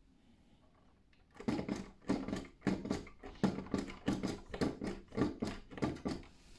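Rapid run of short squeaks and creaks, roughly two to three a second, from a 1:18 scale die-cast Range Rover Sport model as it is pressed on the roof and worked at the front end. The run starts about a second and a half in and stops shortly before the end.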